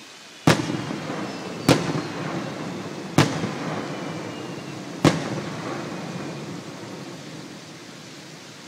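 Aerial firework shells bursting: four sharp bangs a second or two apart, each followed by a long rolling echo off the surrounding valley that fades out after the last one.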